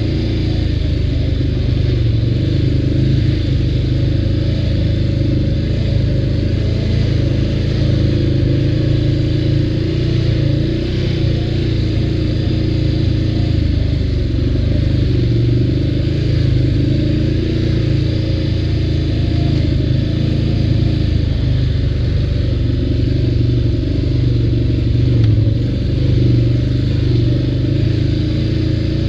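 ATV engine running steadily while riding, its pitch wavering a little with the throttle.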